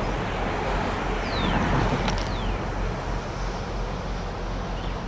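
Diesel locomotive moving slowly with its engine running, a steady low rumble that swells briefly about a second and a half in. A few short, high, falling squeaks sound around two seconds in.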